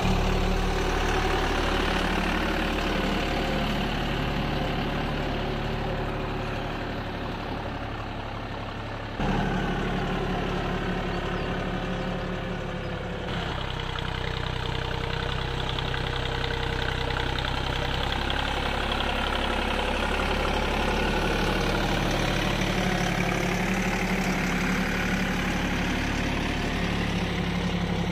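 Deutz-Fahr tractor's diesel engine running steadily as it pulls a laser land leveller across tilled soil. The sound jumps abruptly twice, about a third of the way in and again a few seconds later.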